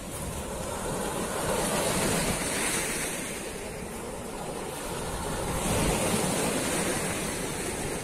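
Black Sea surf breaking and washing up a pebble beach, swelling louder twice as waves come in.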